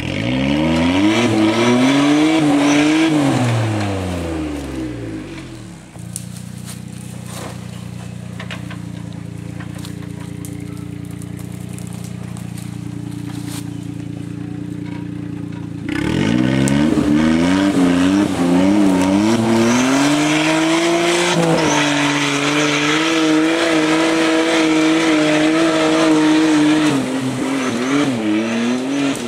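Suzuki Jimny JA11's F6A turbo three-cylinder engine revved up and down for a few seconds, then idling steadily for about ten seconds, then revved hard and held at high revs with a wavering pitch, as under load on a steep climb.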